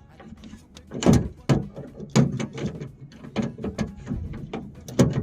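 A wrench working a 10 mm nut inside a car door: a run of irregular metallic clicks and knocks.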